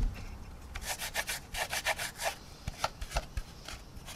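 Damp paper kitchen towel rubbed in quick strokes over a plastic model's painted fuselage, about three or four scratchy wipes a second, removing dried clay wash. A single low thump comes right at the start.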